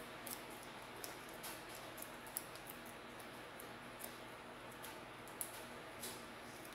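Faint, irregular crinkles and small clicks of a paper dashi-pack sachet filled with coffee grounds being gathered and twisted shut with a wire twist tie.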